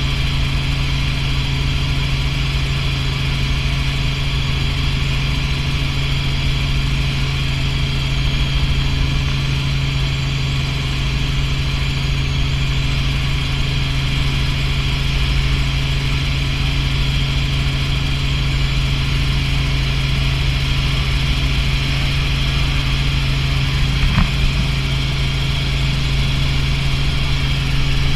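Robinson R44 helicopter in cruise flight, heard from inside the cabin: the steady drone of its piston engine and main rotor.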